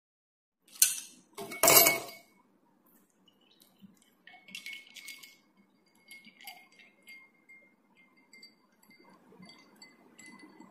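Two loud clatters about a second in, then milk poured into a glass tumbler: soft splashing with faint clinks and a thin ringing of the glass.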